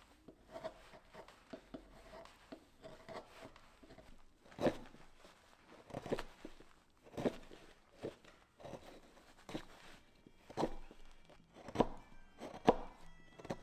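A series of dull knocks, irregular at about one a second and growing stronger, after a few seconds of light clicks and taps; background music comes in near the end.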